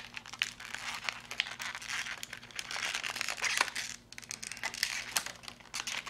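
Stiff plastic blister packaging of a RAM stick crinkling and crackling with irregular clicks and snaps as it is pried open by hand. The RAM is stuck fast in the pack. There is a brief lull about four seconds in.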